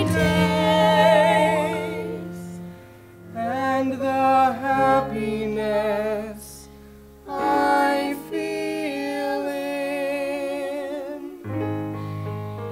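Singing of a show-tune ballad: a voice holds long notes with vibrato over piano and bass accompaniment. The voice breaks off briefly twice, about three and seven seconds in.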